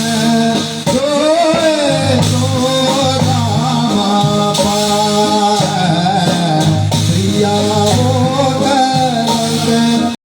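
Music: a Himachali song with a singer's wavering melody over instruments and a steady low accompaniment. It cuts out abruptly about ten seconds in.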